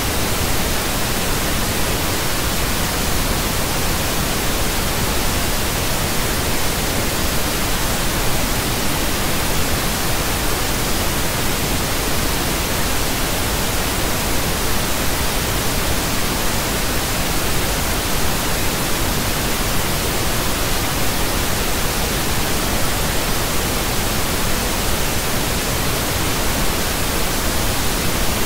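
Pink noise: a steady, unbroken hiss spread evenly from deep rumble to high treble, with no changes in level.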